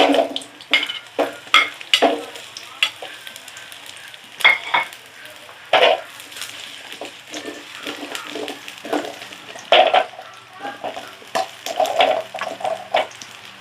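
Sliced carrots frying in hot oil in a pan, a steady sizzle broken by irregular scrapes and clinks as a utensil stirs them against the pan.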